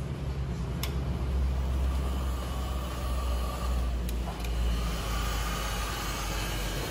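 Handheld electric heat gun running, its fan blowing steadily over a low hum, with a whine that grows stronger about halfway through.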